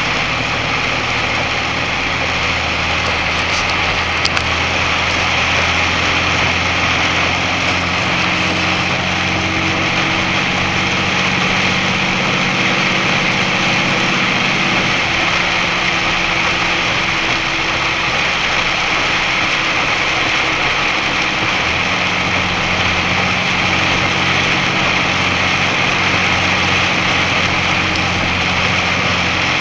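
Box truck's engine running at road speed over a steady hiss of heavy rain and wet tyres. The engine note changes about halfway through and again about three quarters of the way in.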